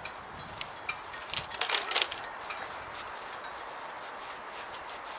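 Cardboard rubbing and scraping against a boat's fibreglass cabin front as a panel is laid against it. A few light clicks come first, then a short cluster of louder scrapes about a second and a half in, over a steady background hiss.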